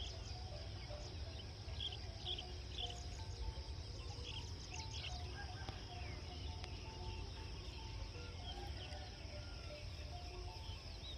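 Rural outdoor ambience: a steady high-pitched insect drone with scattered short bird chirps, over a low rumble.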